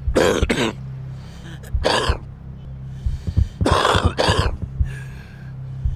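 A person coughing hard in short fits, typical of a smoker's cough: a double cough right at the start, a single cough about two seconds in, and another double cough around four seconds. A low steady hum runs underneath.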